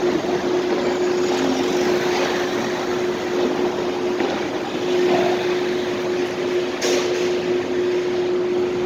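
Ambience of a supermarket parking garage: a steady rush of noise with a constant hum running through it, and one sharp click about seven seconds in.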